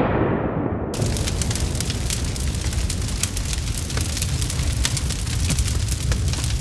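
Fire sound effect: the tail of a blast fading over the first second, then a steady low roar of flames with many sharp crackles.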